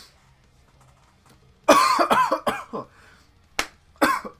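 A man coughing and gasping in a harsh, voiced fit that starts about a second and a half in, with a sharp click and another short burst of coughing near the end. He is reacting to the burn of a spoonful of superhot hot sauce.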